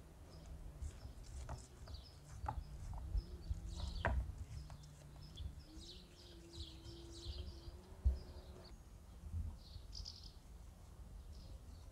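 Small birds chirping in the background while a knife trims and scrapes a raw veal rack on a wooden board, with a few sharp clicks and soft knocks as the blade meets bone and wood.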